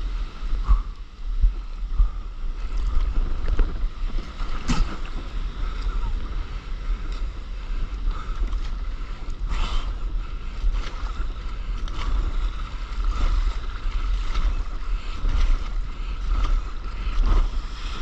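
Breaking surf and rushing water heard from a camera at water level on a stand-up paddleboard, with wind buffeting the microphone. A few sharp splashes stand out, about five and ten seconds in.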